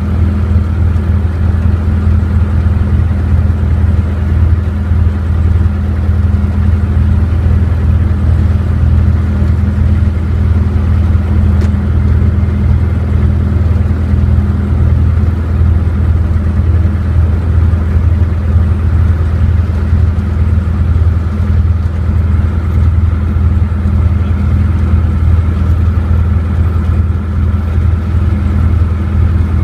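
Light aircraft's piston engine running steadily at low power, heard from inside the cabin as an even, loud drone.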